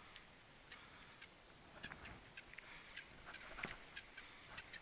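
Near silence, broken by faint, irregular small clicks and ticks; one is a little louder about three and a half seconds in.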